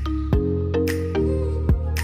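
Background music: held chords and a melody over a steady beat of drum hits.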